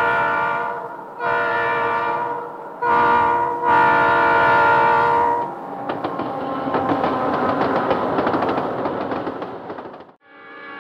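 Locomotive horn sounding the grade-crossing pattern: two long blasts, a short one and a long one, signalling a train approaching a crossing. A train's wheels then clatter over the rail joints as it passes, cutting off suddenly near the end, just before another horn blast begins.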